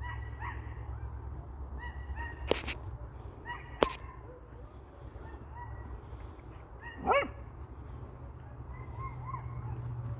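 A dog gives one short yelp about seven seconds in, with faint short high calls and two sharp clicks earlier, over a steady low rumble.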